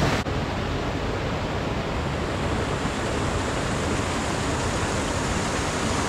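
Steady rush of water from a waterfall cascading down the gorge stream.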